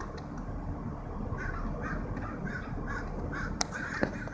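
BMW engine idling steadily with the new fan clutch installed. The owner says the fan clutch makes it idle weird. From about a second and a half in, a crow caws over it in a quick run of calls, and two sharp clicks come near the end.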